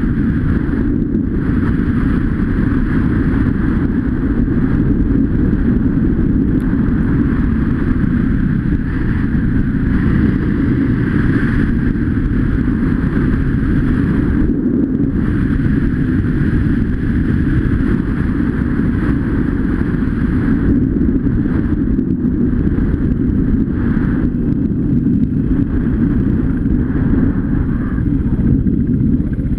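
Off-road motorcycle engine running steadily under way on a gravel trail, with brief easings of the upper noise a few times.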